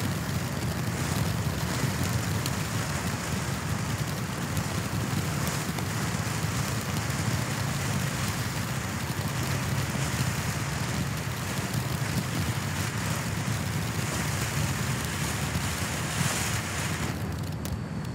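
Black Cat 'SHHH!!!' low-noise fireworks cake fizzing and crackling steadily as it throws sparks, with no loud bangs, over a steady rumble of wind on the microphone. The fizzing drops away near the end as the cake goes dark.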